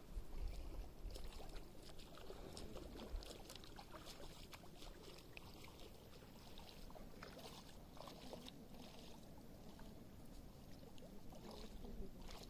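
Faint sloshing and lapping of shallow seawater around a person wading, with many small light splashes ticking through it. A low rumble is loudest in the first second.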